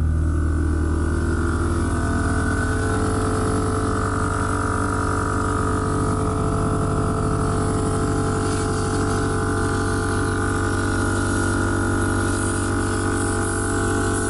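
12-volt air-suspension compressor running continuously, a steady mechanical hum with a fast, even pulsing.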